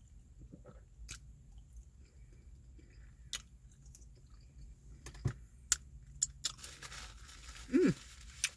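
Close-up chewing of a double cheeseburger, with wet mouth clicks and smacks every second or so. Near the end comes a short, louder vocal sound that drops in pitch.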